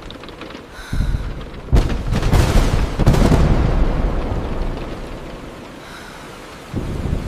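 Thunder: a sudden sharp crack about two seconds in, then a rolling rumble that fades over the next few seconds, over a steady hiss of rain on a car's glass.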